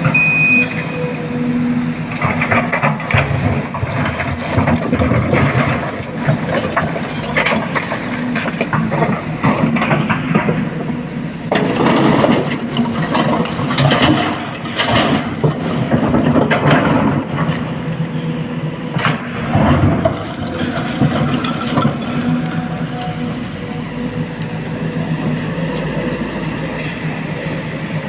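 Heavy diesel earthmoving machinery running steadily, with a reversing beeper sounding briefly at the start. Through the middle stretch there is loud clattering and rattling, as from an excavator bucket dumping rock into a truck bed.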